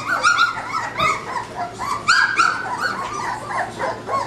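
A litter of puppies whining and yipping together: many short, high cries overlap one another without a break.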